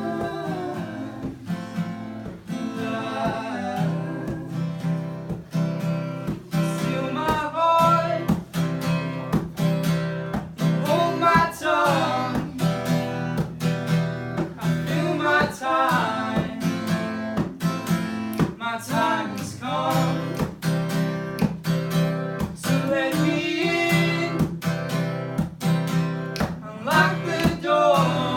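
Acoustic guitar strummed steadily, with a voice singing short melodic phrases over it every few seconds.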